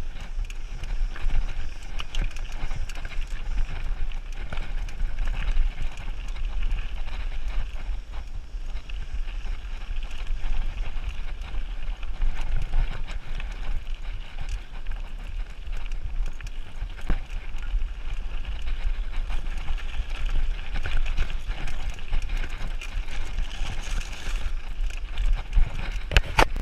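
Mountain bike riding down rocky dirt singletrack: tyres crunching over dirt and stones and the bike rattling with many small knocks, under a steady low rumble of wind on the camera microphone. A sharp louder knock comes near the end.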